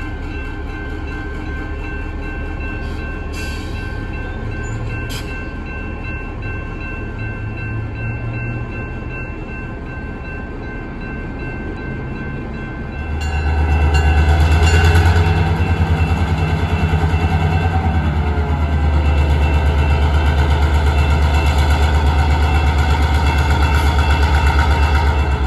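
Diesel locomotive of the Grapevine Vintage Railroad running at low idle. About halfway through, the engine throttles up sharply and then runs loud, deep and steady as the train pulls its passenger coaches away.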